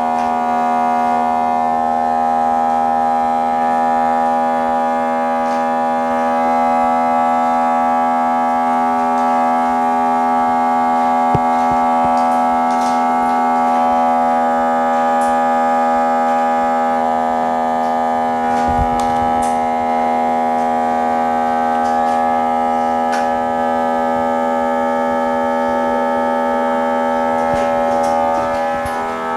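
A steady drone of several held tones that does not change, with a few faint clicks and taps over it.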